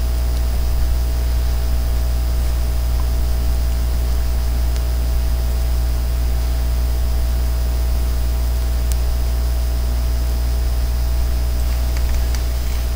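Steady low electrical hum with an even hiss over it, unchanging throughout, with a couple of faint tiny clicks.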